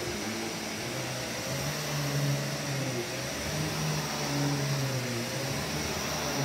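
Vax Commercial VCU-03C upright bagged vacuum cleaner running while being pushed back and forth over carpet: a steady suction rush with a low motor note that wavers and swells every second or so.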